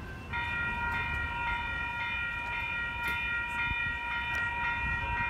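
Railroad crossing warning bell starting to ring just after the start and ringing steadily at about two strikes a second, warning of an approaching train.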